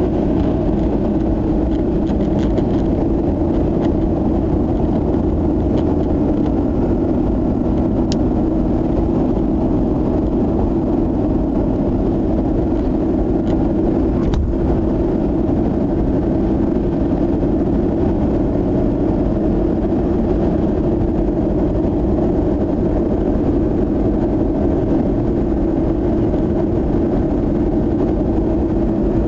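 Steady in-cabin drone of a Mazda RX-8 cruising at expressway speed: its rotary engine and tyre noise on the asphalt, holding an even pitch and level throughout.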